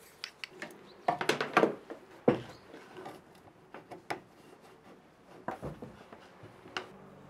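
Hands handling a plywood workpiece: scattered clicks, taps and rubbing, with a sharp knock of wood about two seconds in.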